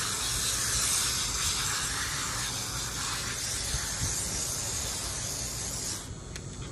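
Garden hose spray nozzle spraying water onto a wet, long-coated dog: a steady hiss that cuts off suddenly about six seconds in.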